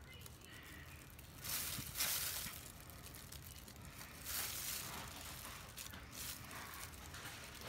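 Two soft rustling swishes, one about a second and a half in and another about four seconds in, over faint room hum.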